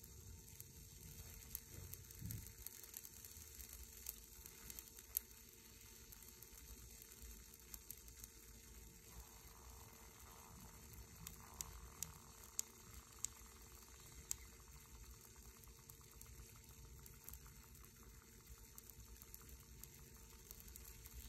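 Faint steady hiss with scattered sharp crackles, a cluster of them about halfway through, from a steel bolt melting and throwing sparks in an induction heater's water-cooled work coil.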